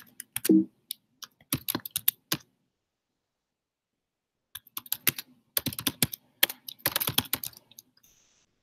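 Typing on a computer keyboard: quick runs of key clicks entering a shell command, in two bursts with a pause of about two seconds between them.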